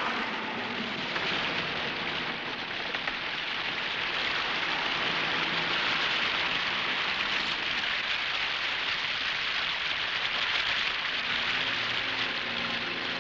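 Steady, heavy rain falling, an even hiss.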